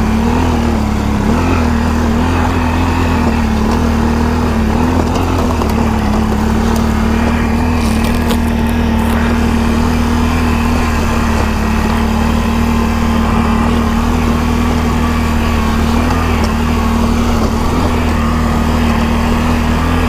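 Can-Am Outlander ATV engine running steadily while riding along a trail. The engine speed rises and falls slightly over the first few seconds, then holds even.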